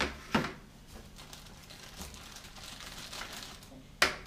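Two knocks near the start, the second louder, and a sharp click near the end, over quiet indoor room sound.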